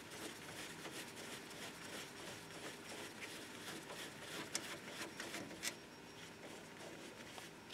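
Faint small clicks and rubbing of metal as loosened brake caliper bolts are turned out by gloved hand, with two sharper ticks about four and a half and five and a half seconds in.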